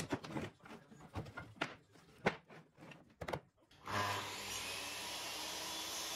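Wooden floorboards knocking and clattering against each other as they are handled, several sharp knocks. About four seconds in, a DeWalt sliding miter saw's motor starts and runs at speed with a steady whir, the blade not yet in the wood.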